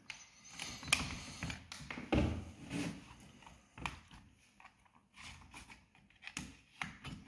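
Irregular clicks and knocks of a jigsaw's plastic motor housing being handled and prised open with a screwdriver.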